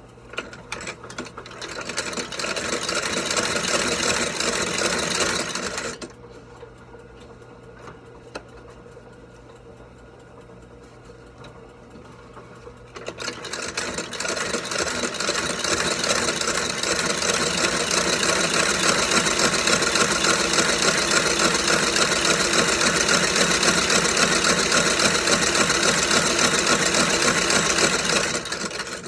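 Lockstitch sole-stitching machine running, sewing a blind stitch through the channel cut in a leather shoe sole. It picks up speed and runs for about five seconds, stops for about seven with only a low hum, then starts again and runs for about fifteen seconds.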